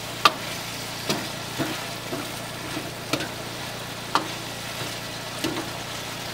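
Dry chicken masala sizzling in a hot wok while a metal ladle stirs it, with several sharp clanks of the ladle striking the wok at irregular intervals.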